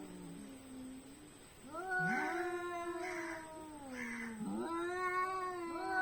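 Domestic cats caterwauling in a fight standoff: long, wavering yowls that slide up and fall away, with three short hissy bursts over the middle yowl.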